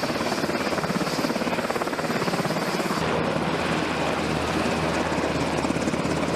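Helicopter sound with its rotor chopping steadily and fast.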